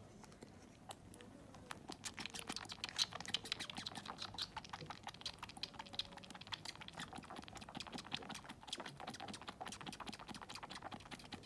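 A kitten suckling at a milk bottle's nipple: a quick, irregular run of faint wet clicks and smacks, starting about two seconds in.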